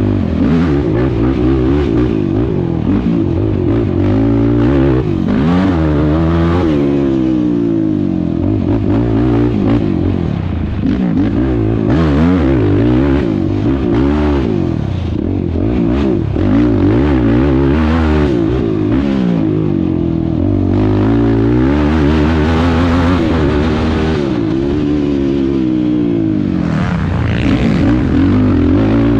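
Sport quad (ATV) engine heard from on board, revving hard and climbing in pitch on each straight, then dropping back before the next turn. This rise and fall repeats every few seconds through the lap.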